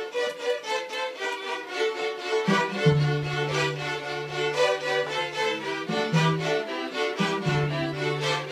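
Student string ensemble of violins and a cello playing a tune in quick, short notes. The cello comes in with long, low held notes about two and a half seconds in, breaking off briefly twice.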